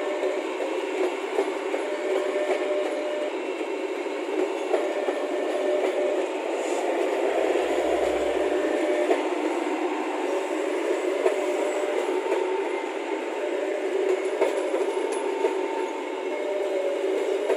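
A train passing on the railway: a steady rolling noise of the wheels on the rails, with occasional clicks.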